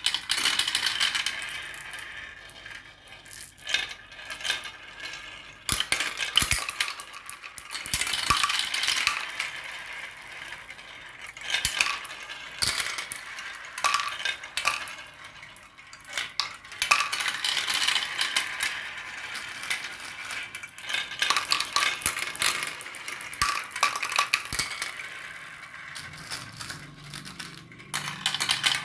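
Many marbles rolling and clattering down a marble run: a dense stream of clicks, clacks and rattles that swells and fades in waves.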